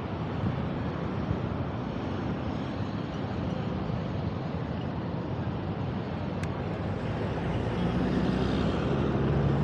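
Street traffic noise heard from a moving ride: a steady rush of passing vehicles and road noise, with a motor vehicle's engine drone growing louder near the end.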